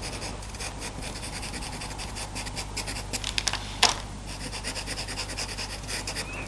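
Faber-Castell Pitt pastel pencil scratching across Pastelmat paper in rapid short strokes, laying down fur, with a sharper click just before four seconds in.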